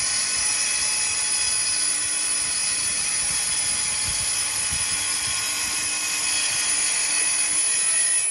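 DeWalt 240-volt corded track saw running under load as it is pushed along its guide rail through a sheet of MDF, a steady whine.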